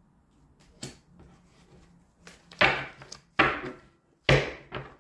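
A deck of tarot cards being handled and shuffled: a light tap about a second in, then four sharp, loud card slaps or swishes, each trailing off quickly, spaced a little under a second apart.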